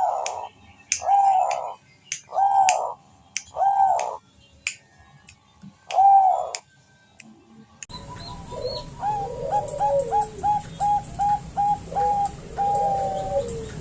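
Zebra doves (Bangkok-type perkutut) calling, used as a lure to draw a male. Five drawn-out coos come with sharp clicks between them. About eight seconds in the recording changes: a quick run of short staccato coos speeds along and ends in longer notes, with a lower cooing underneath and a steady hum behind.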